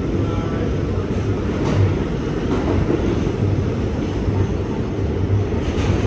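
Kawasaki R211 subway train running at speed, heard from inside the car: a steady low rumble of wheels and motors, with a low hum that swells and fades.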